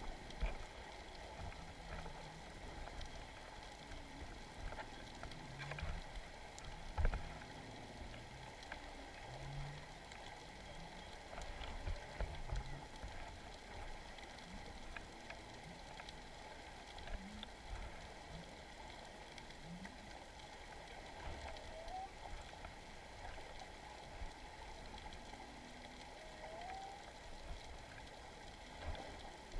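Muffled underwater ambience through a GoPro's waterproof housing on a sandy seabed: a low rumble with scattered dull knocks and faint clicks, loudest about 7 and 12 seconds in.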